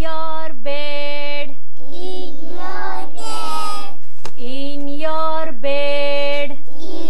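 A group of young children singing an action song together with a woman's voice, in phrases of several long held notes with short breaks between them.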